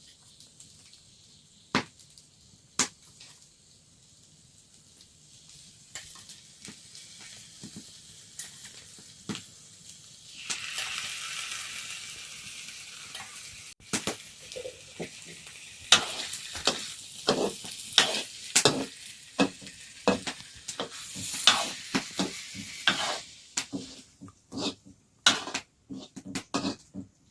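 Food frying in a pan: a few sharp knocks, then about a third of the way in a sizzle starts suddenly. Through the second half a utensil stirs and scrapes in the pan with many quick clinks and taps.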